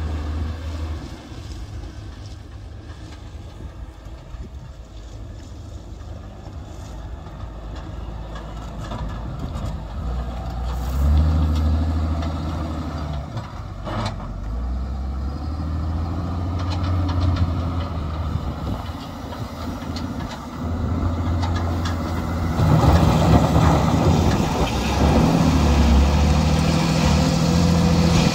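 Diesel engine of a JCB wheel loader running and revving in surges, loudest in the last few seconds as the loader drives its bucket into a gravel pile.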